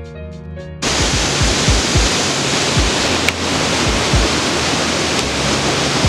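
Waterfall rushing over rocks, a loud steady wash of water that comes in suddenly about a second in, with background music and its beat continuing underneath.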